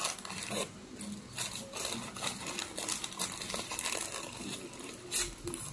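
Paper burger wrapper crinkling irregularly as it is handled and unwrapped by hand.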